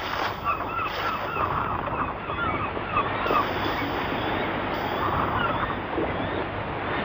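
Waves washing on a shore, with birds calling in quick runs of short, arched cries, first a rapid string and then a few more a few seconds later.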